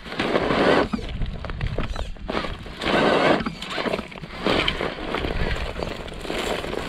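RC rock crawler on Pro-Line Hyrax tyres clawing up a bank of loose dirt and stones: tyres scrabbling and dirt and gravel crunching in uneven bursts, with small knocks and clicks from stones between them.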